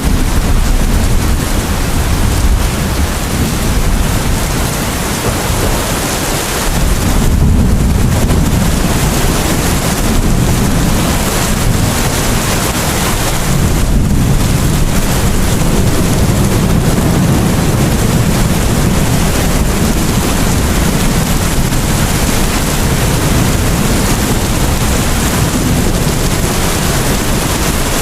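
Rain falling steadily, a dense even hiss, with a low rumble underneath that swells about a quarter of the way in and stays strong through the middle.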